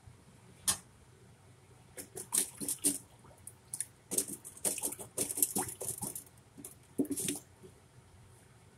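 Scattered wet squishes and light clicks of kitchen utensils scooping crushed blackberries, in irregular bunches from about two seconds in, with a sharper click near the start and another around seven seconds.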